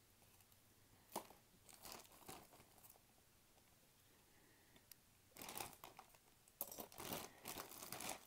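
Clear plastic bag crinkling as it is handled, in short spells: faint at first, louder and longer in the second half. A light click about a second in.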